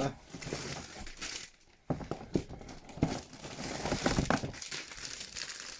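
Crinkling and rustling of packaging as items are rummaged out of a large box, in irregular crackles with a brief pause about one and a half seconds in.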